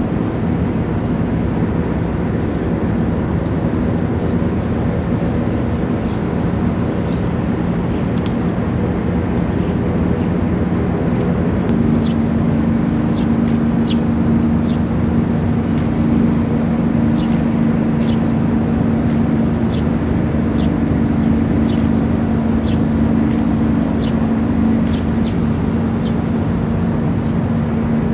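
Helicopter circling overhead, a steady droning hum that grows stronger about twelve seconds in, with scattered short high chirps over it from then on.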